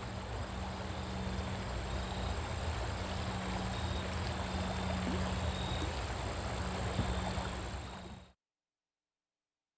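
Steady rush of flowing river water with a low, steady hum underneath; the sound cuts off into silence a little over eight seconds in.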